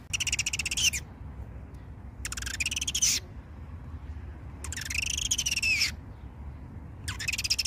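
A bird giving four harsh, buzzy calls about two seconds apart. Each call lasts about a second and arches up and then down in pitch.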